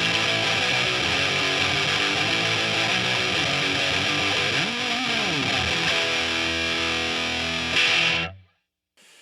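Heavily fuzzed electric guitar (a Fender Stratocaster through an Electro-Harmonix Big Muff Pi into a Marshall amp) playing a rhythm riff. About halfway through the pitch slides up and back down, then a held chord rings and cuts off suddenly near the end.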